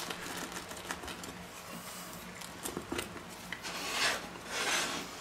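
A pizza-cutter wheel rolling through crisp baked pizza crust with light crunching and clicks, then two short scrapes about four seconds in as the round wooden pizza board is turned on the wooden cutting board.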